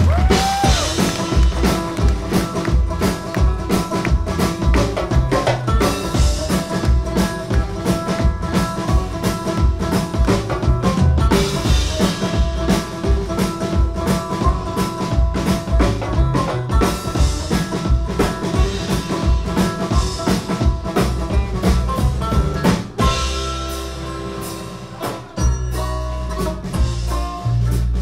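Live band of acoustic guitar, banjo, upright double bass and drum kit playing a heavy metal song bluegrass-style, with a driving drum beat. The drums drop out for a couple of seconds near the end before the band comes back in.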